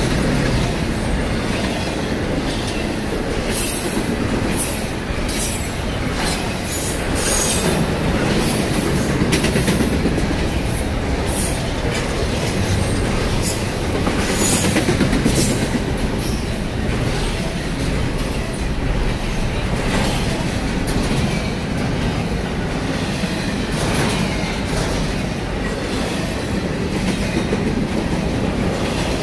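Double-stack intermodal freight train rolling past: a steady rumble and clatter of well-car wheels on the rails, with repeated short high-pitched wheel screeches, most of them in the first half.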